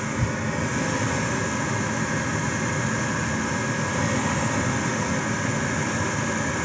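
Rheem Criterion gas furnace running with a steady, even rushing noise, during a test cycle of a furnace that keeps failing to stay lit, which the owner suspects has a bad flame sensor.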